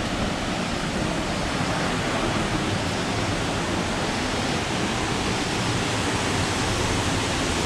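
Steady rushing of a waterfall, a constant even wash of water noise; the falls are running with little water.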